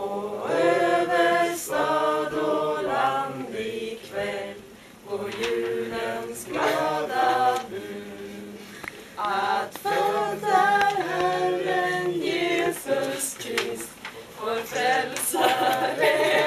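A small group of amateur voices singing a Christmas song together without accompaniment, in phrases with short breaks between them.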